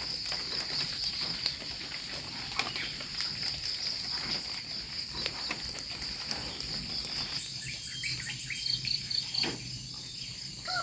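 Steady high-pitched chirring of insects, with scattered light clicks and a short run of quick repeated chirps about seven and a half seconds in.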